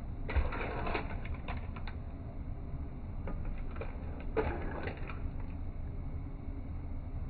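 Clams in their shells clattering against each other and the pan as a spatula stirs them: rapid rattling clicks in two spells, one at the start and another around four seconds in, over a steady low hum.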